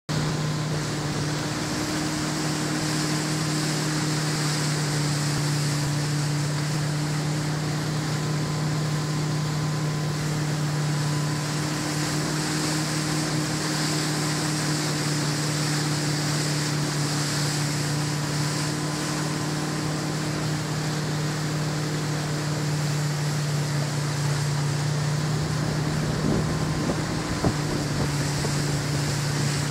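Correct Craft towboat's inboard engine running at a steady towing speed, a constant hum, with the wake's water rushing and wind buffeting the microphone. Near the end come a couple of sharp knocks.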